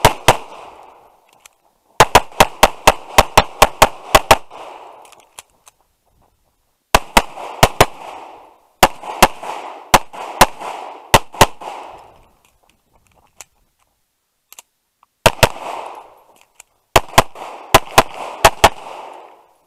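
Tanfoglio Stock 2 pistol firing in rapid strings of shots, several a second, each shot trailing a short echo. The strings are broken by pauses of one to three seconds.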